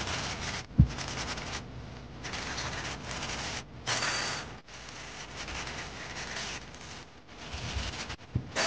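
Hand sanding a walnut tray with a sanding sponge: scratchy rubbing strokes broken by short pauses, with a sharp thump just under a second in. About four seconds in, a brief hiss of air from a blow nozzle clearing the sanding dust.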